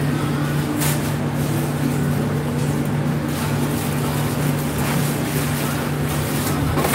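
A motor running steadily with a low, even hum, and a light click about a second in.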